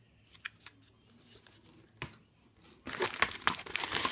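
Clear plastic air-cushion packing crinkling densely as a hand rummages through it, starting about three seconds in. Before that it is quiet, with a few light clicks.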